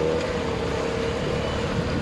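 Motorboat engine running steadily under way, a continuous drone with a held pitch.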